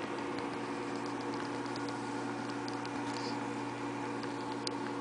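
Steady mechanical hum of running reef-aquarium equipment, with faint irregular ticking over it and one sharper click near the end.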